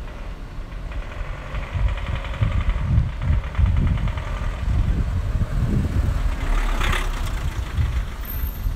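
City street traffic: a vehicle engine running close by, with wind buffeting the microphone in uneven low rumbles and a brief rush of noise near the end.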